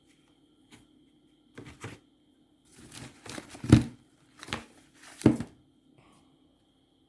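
Fireworks and their packaging being handled: a run of short rustles, crinkles and knocks in several bursts, loudest about halfway and again near the end, over a faint steady hum.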